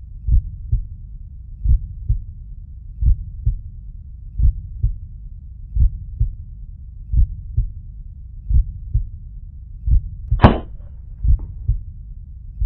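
Slow heartbeat sound effect: a low double thump repeating about every second and a half. About ten seconds in comes a single sharp crack, the air rifle's shot striking the pigeon.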